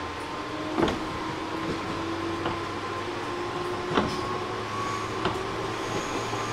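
JR East 205 series 600 subseries electric train heard from inside the car as it runs on the track. A motor hum rises slowly in pitch as the train picks up speed, and the wheels clack sharply over rail joints three times.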